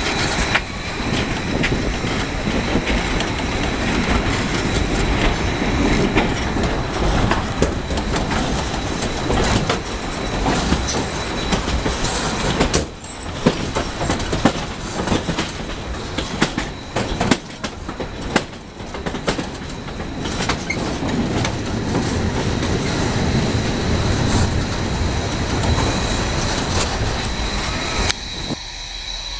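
Narrow-gauge steam train rolling along, heard from on board: wheels clattering over the rails with a thin, steady wheel squeal.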